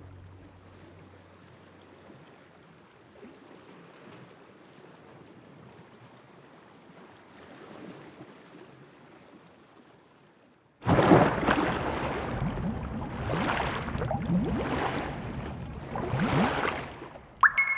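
Faint hiss for the first ten seconds or so, then a sudden loud rush of swishing, splashing water sound effects that swell and fade several times. A short sharp ping comes at the very end.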